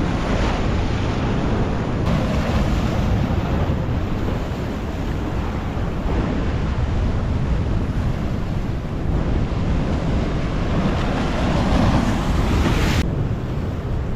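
Sea surf washing and breaking against the boulders of a rocky seawall, a steady rushing noise, with wind buffeting the microphone.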